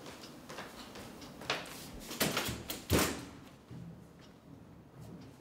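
A front door being opened: several sharp clicks and knocks from its latch and handle, the loudest about three seconds in.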